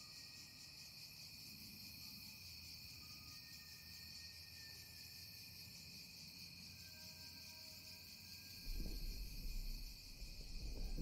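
Quiet, steady chirring of crickets and other insects in a night ambience. A low rumble comes in during the last couple of seconds.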